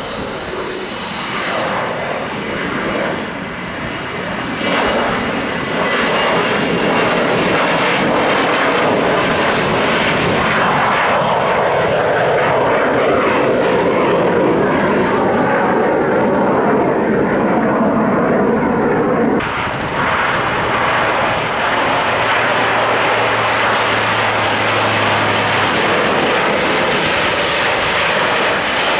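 Twin turbofan jet engines of a Cessna UC-35A Citation Ultra at takeoff power as it rolls and climbs away, with a high whine slowly falling in pitch. After a sudden cut about two-thirds of the way through come the twin turboprops of an Alenia C-27J Spartan running as it moves along the runway.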